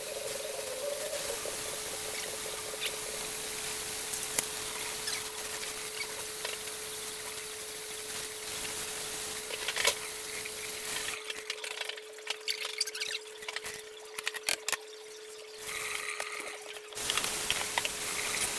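Kitchen tap running into a stainless steel sink as tie-dyed cotton towels are rinsed out by hand. About eleven seconds in, the water goes quiet for several seconds while the wet cloth is handled with scattered clicks and knocks, then the tap runs again near the end.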